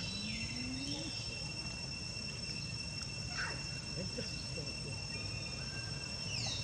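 Insects droning outdoors, a steady high-pitched whine held at two pitches throughout, over a low background rumble, with a few faint scattered chirps and calls.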